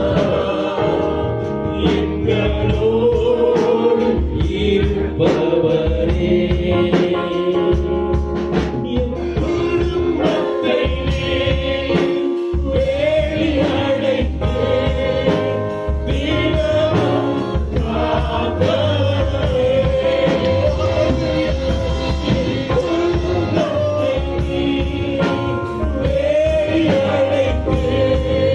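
Live worship band playing a Tamil Christian song: two men singing into microphones over electric bass, keyboard and a drum kit keeping a steady beat.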